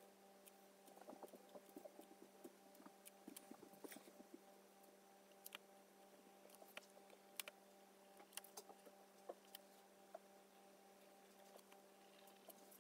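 Near silence: a faint steady hum with scattered faint ticks and scratches, a fine drawing pen working on watercolour paper.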